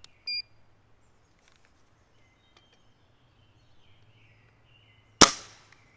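Air Arms TX200 MkIII spring-piston air rifle firing once, a single sharp report about five seconds in, as the trigger breaks under a slow pull on a trigger-pull gauge. A short electronic beep just after the start, and faint birdsong behind.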